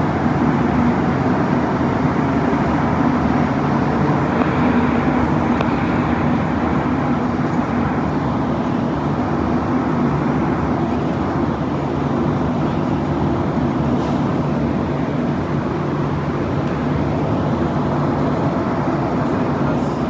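Rubber-tyred Montreal metro train running through a tunnel, heard from inside the car: a steady rumble with a low hum.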